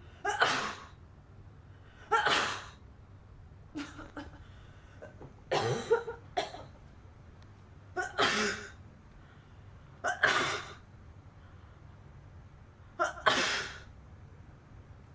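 A girl sneezing in a run of about six sneezes, one every two seconds or so, several with a short catch of breath just before the burst.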